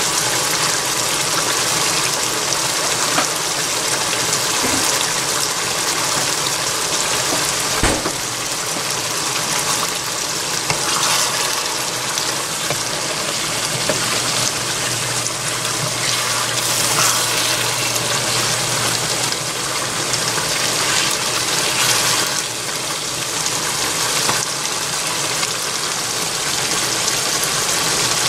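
Chicken and bora long-bean stew simmering in a nonstick frying pan: a steady bubbling, sizzling hiss. There is one knock about eight seconds in, and a spoon stirs the pan around the middle.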